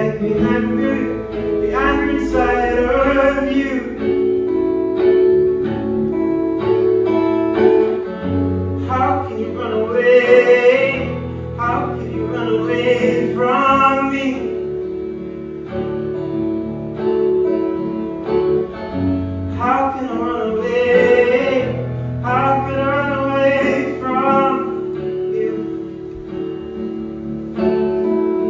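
A man singing a song while accompanying himself on an electric guitar. Sustained guitar chords ring steadily under phrases of his vocal.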